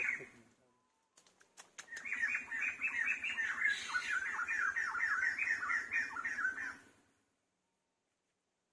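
An animal calling: a fast train of short chirping notes, several a second, for about five seconds, then stopping abruptly. A few faint clicks come just before it.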